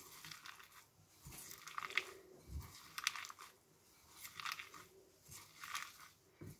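A hand squeezing and kneading thin strips of salted raw fennel in a bowl, making about five faint crunching squeezes a second or so apart. The squeezing presses juice out of the salted fennel.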